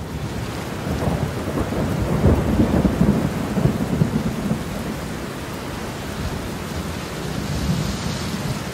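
Thunderstorm sound effect: thunder rumbling over a steady hiss of rain, heaviest in the first few seconds, then settling to a steadier wash.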